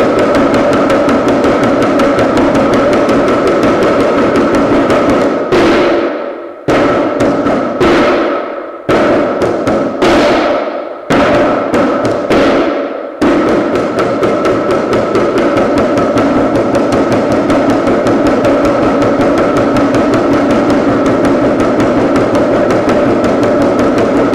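Dhyangro, the Nepalese shamanic frame drum, beaten in a fast, steady roll. About five seconds in, the roll breaks into single strokes about a second apart, each left to ring and fade. The fast beating resumes near the middle.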